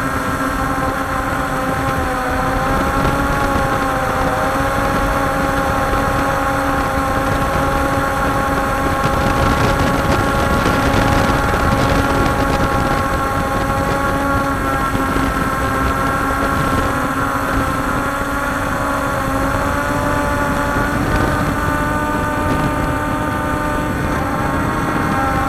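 Walkera Scout X4 quadcopter's electric motors and propellers whining steadily in flight, a stack of several tones that shift a little in pitch now and then as the aircraft manoeuvres, over a constant rushing noise, heard from the camera mounted on the drone.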